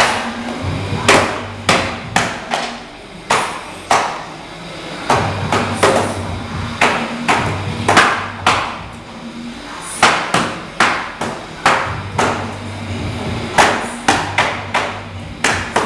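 Hand hammers striking a wooden floor truss and its metal plates during assembly: many sharp blows, about two a second at an uneven pace, over a steady low machine hum.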